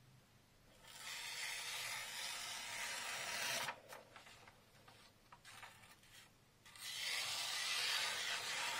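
A freshly sharpened VG10 nakiri kitchen knife slicing through a sheet of paper, an even papery hiss as the edge runs through it, twice: from about a second in, and again from about seven seconds in. The smooth, unbroken cut is the sign of a sharp edge.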